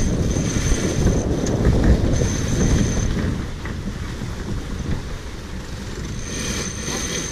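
Wind buffeting the microphone aboard a racing sailboat under way, an uneven low rumble that eases slightly after about four seconds. A faint high-pitched whine comes and goes over it.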